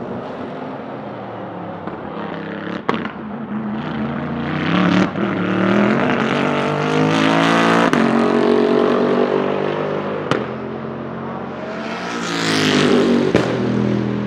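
Bentley Continental GT3 race car's twin-turbo V8 accelerating hard and passing by, its note climbing in pitch and then falling away, with a few short sharp cracks. Near the end a second acceleration swells up.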